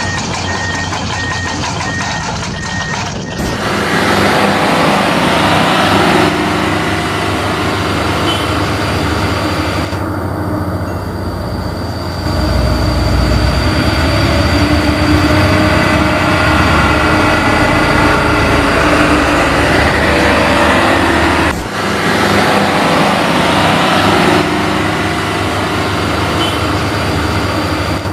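A reversing alarm beeping about twice a second for the first three seconds. It gives way to loud heavy-truck engine and machinery noise that changes abruptly several times.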